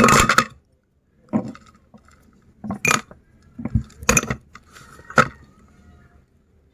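Hard candy cracking and clinking as a meat grinder crushes it. There is a series of six or seven sharp, irregular cracks, the loudest right at the start.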